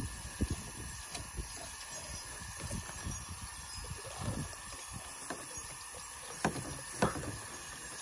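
Water spraying steadily from a hose nozzle onto a fish and a fish-cleaning table, with a fillet knife working through the fish and soft handling sounds. Two sharp knocks on the table come near the end.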